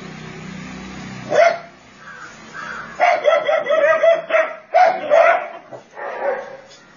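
Dog barking: one bark about a second in, then a rapid run of short barks in the middle, and a couple more near the end.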